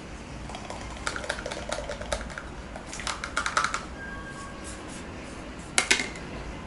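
Light clicks and rustling as a plastic stick packet of powder is handled and emptied into the mouth, then a short clatter of tableware near the end.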